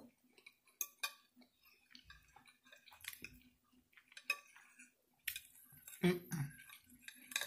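Metal fork scraping and tapping on a glass plate in scattered light clicks, gathering up the last of the mashed potatoes and gravy.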